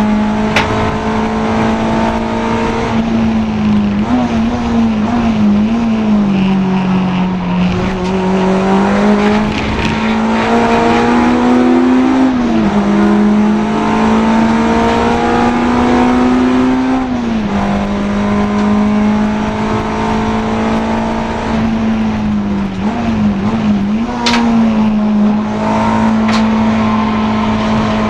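Honda Integra DC2 race car's four-cylinder engine running hard at high revs. Its note climbs slowly and drops sharply twice, as at upshifts, and wavers and dips twice more, with a few sharp clicks.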